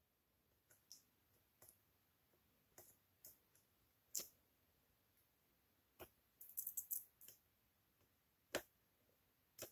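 Near silence broken by faint, scattered small clicks and taps from the soldering iron tip and fingers on a circuit board while soldering a surface-mount switch, with a quick flurry of them about two-thirds of the way in.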